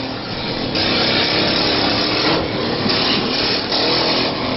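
Small engines of derby lawnmowers running and revving, the noise swelling and easing.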